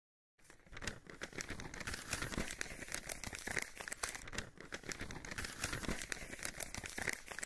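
Paper crinkling and rustling, a dense crackle starting about half a second in: a sound effect of a paper scroll being rolled and unrolled.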